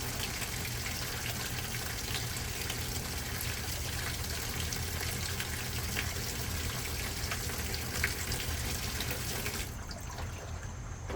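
Water rushing into a GE top-load washing machine over a steady low hum, cutting off abruptly near the end. The machine is draining as fast as it takes water in, so the tub never fills.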